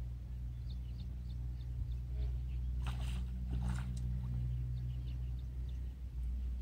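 A hooked fish splashing at the water's surface as it is reeled in and lifted out, a few sharp splashes about three seconds in, over a steady low hum.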